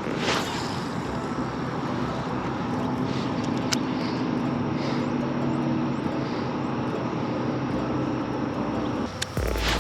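A steady engine drone over a constant rushing noise, with one sharp click a little under four seconds in.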